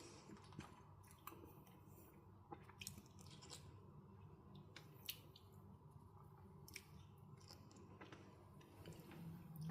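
Faint chewing and soft mouth clicks of a person eating a slice of mango, with a few small scattered clicks.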